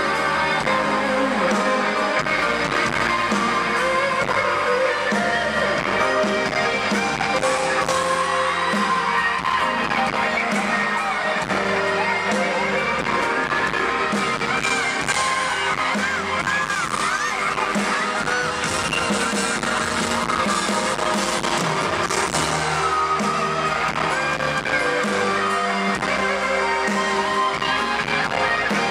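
Live pop song with singing, heard loud through an arena's sound system, with a crowd of fans cheering over it.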